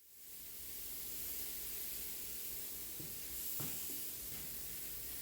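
Compressed-air paint spray gun spraying paint reducer in one steady hiss, its air pressure turned down for a blend.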